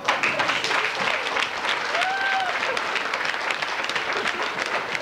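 Audience applauding, steady clapping that starts right at the beginning, with one voice calling out briefly about two seconds in.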